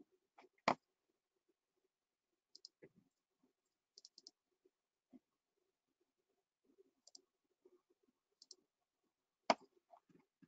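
Faint computer mouse button clicks, scattered and sometimes in quick pairs, with two louder clicks about a second in and near the end.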